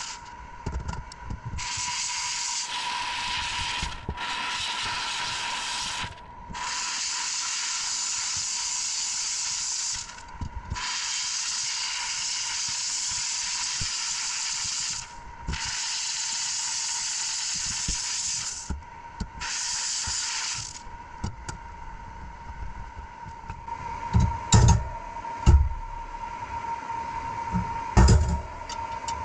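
Hissing spray of air in repeated bursts a few seconds long, each starting and stopping sharply, over a faint steady whine; after the last burst a few heavy knocks.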